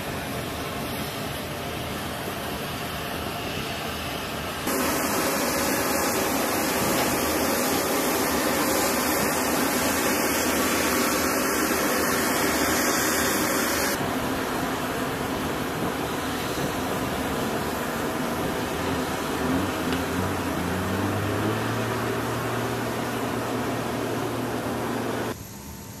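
Steady engine and machinery noise from vehicles and aircraft on an airfield, jumping abruptly louder about five seconds in and dropping back about halfway through. Near the end a low engine hum rises in pitch and then holds.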